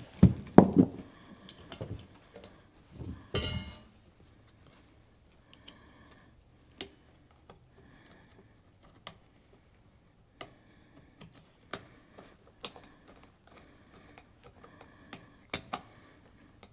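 Small metal clicks and taps as a green ground screw is fitted through the ground wire's ring terminal and screwed into the heater pan. The handling is busiest in the first few seconds, then thins to scattered faint ticks.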